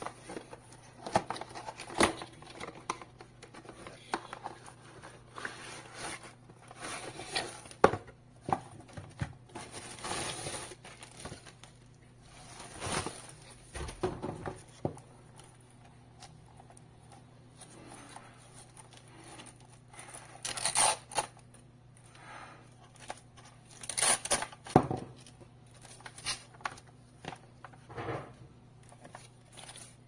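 Cardboard retail box being opened and a white plastic power strip slid out and handled: irregular scraping, rustling and knocks of cardboard and plastic. A faint steady low hum runs underneath.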